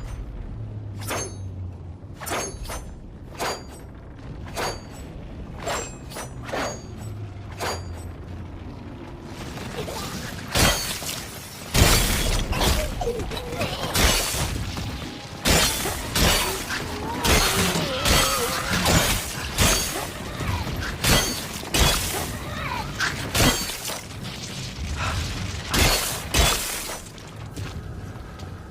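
Katana sword sound effects: a row of single sharp metallic blade strikes, each with a thin high ring, about one a second. From about ten seconds in, a faster and louder run of blade clashes and impacts follows.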